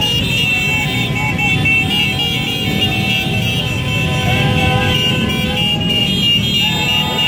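Many motorcycle engines running together in a dense, steady rumble, with a steady high-pitched tone over it and a few held tones joining in about halfway through.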